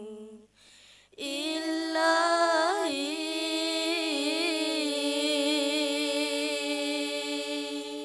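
A cappella group of young women singing a nasyid: a phrase breaks off about half a second in, then the voices come back and hold the song's closing note, with a wavering ornament early in it, until it stops right at the end.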